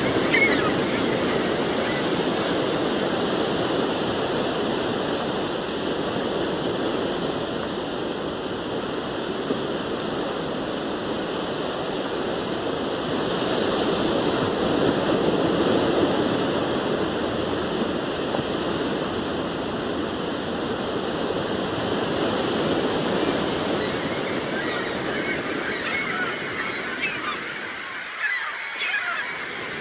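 Sea surf washing onto a beach as a steady rushing that swells and eases, loudest about halfway through. Seagulls call briefly at the start and several times again near the end.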